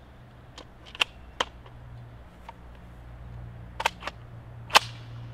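Sharp metallic clicks and clacks from an IWI Tavor bullpup rifle being handled and loaded. There are three clicks about a second in, two more just before four seconds, and a single louder clack near the end.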